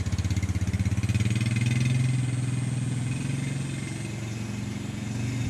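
Passenger train running, heard from inside the coach: a low, fast-pulsing mechanical rumble that swells about a second or two in and then eases slightly.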